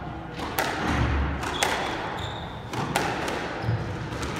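Squash rally: the ball cracks sharply off the rackets and the court walls, three hard knocks about a second apart, each ringing briefly in the enclosed court.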